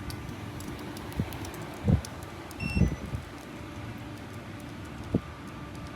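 A pickup truck failing to start as the ignition is tried: a few short, dull clicks and a brief electronic beep, with no engine cranking or catching.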